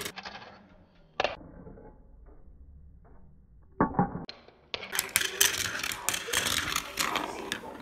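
Steel marbles rolling and clacking through a Gravitrax plastic marble run with metal rails: a few separate clicks in the first four seconds, then a dense clattering rattle of many marbles from about five seconds in.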